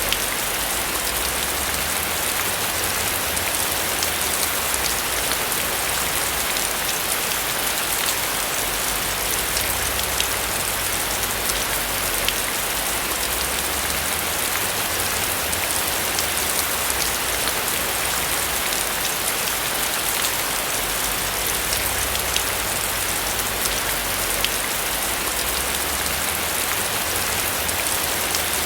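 Steady rain falling on a roof: a dense, even patter dotted with many small drop ticks, over a low rumble that swells and fades.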